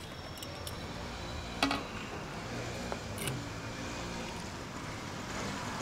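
Steel cooking vessels clinking lightly twice, about a second and a half in and again about three seconds in, over a steady background hiss.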